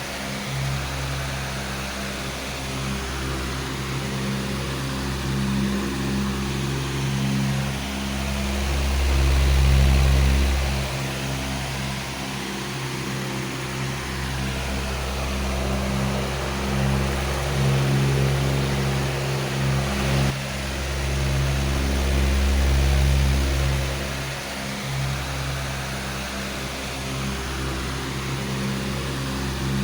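A powerful electric fan running steadily: a rush of moving air over a low motor hum, swelling and easing slowly in loudness.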